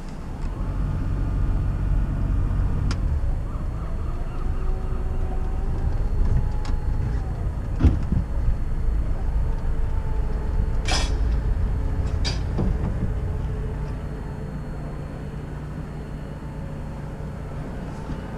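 Sailboat's inboard engine running at low speed during slow manoeuvring, with a few sharp clicks or knocks about eight, eleven and twelve seconds in; it eases somewhat near the end.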